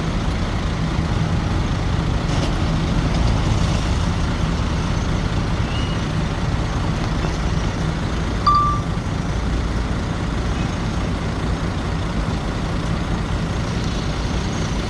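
Heavy diesel earthmoving machinery running steadily, a low engine drone, with a single short beep about eight and a half seconds in.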